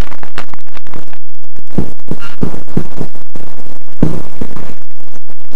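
Crowd hand-clapping, heard as many irregular sharp claps, recorded so loud that it distorts.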